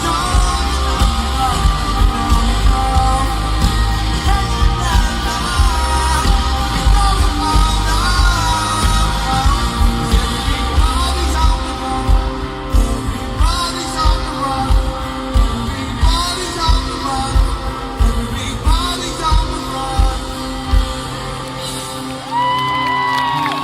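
Live rock band playing with singing, recorded from the audience on a phone in a large stadium. The heavy drums and bass drop out about 21 seconds in as the song winds down.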